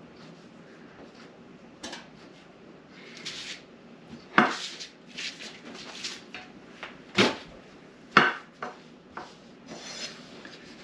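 Kitchen handling sounds as floured steak pieces are moved between a plate, a baking dish and a cutting board: four sharp knocks of dishes and board on the counter, with softer rustling and brushing between them.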